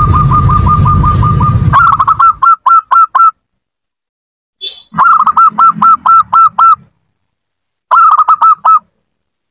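Zebra dove (perkutut) song: a fast trill of cooing notes over a low rumble, which cuts off about two seconds in. Three quick runs of short hooked cooing notes follow, each separated by an abrupt silence.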